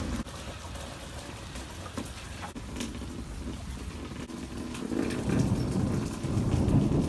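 Rain falling steadily, with scattered sharp drops, and a low rumble of thunder that builds about five seconds in.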